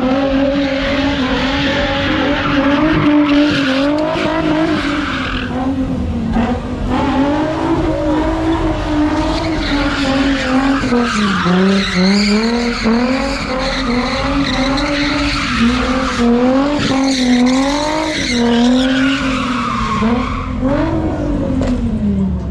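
A car engine held at high revs, its pitch rising and falling as the throttle is worked, over the steady squeal and hiss of tires skidding through a drift.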